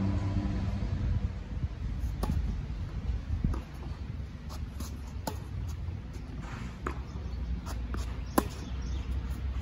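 Tennis rally on a clay court: a tennis ball struck by rackets, heard as sharp, irregular pops several times, the loudest about eight seconds in, over a low steady rumble.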